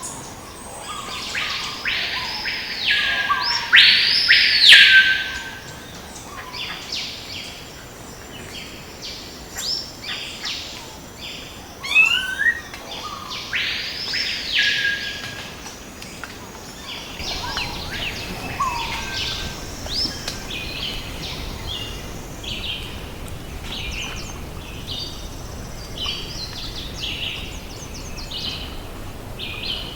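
Rainforest birds calling: a few loud arching notes that rise and fall, in the first five seconds and again about halfway through, then many short chirps through the rest.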